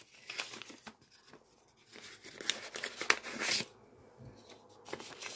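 Paper envelopes and a folded banknote rustling and crinkling as they are handled, in short spells with a quiet gap about a second in; the busiest stretch comes a little past the middle.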